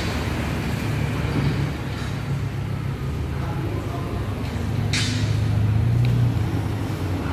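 Honda Civic Turbo's engine running at low revs as the car creeps slowly forward, with a short hiss about five seconds in.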